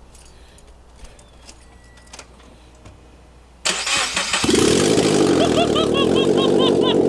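A Subaru BRZ's FA20 flat-four boxer engine cranked by the starter and catching about four and a half seconds in, then running loud and raw with no exhaust header fitted, the exhaust coming straight out of the open cylinder-head ports.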